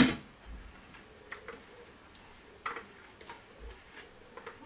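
A clear plastic container knocked and handled over a cooking pot while thick herb marinade is emptied out of it: one sharp knock at the start, then a scatter of faint light ticks.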